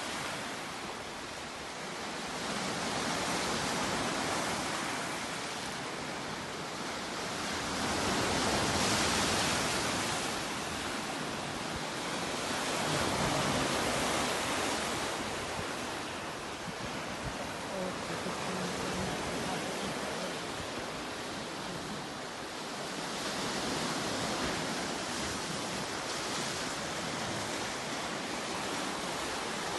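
Sea waves washing up on a beach: a continuous rush of surf that swells and ebbs every five seconds or so.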